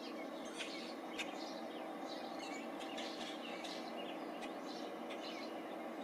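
Small songbirds chirping and twittering in many short, high calls, over a steady low background hum.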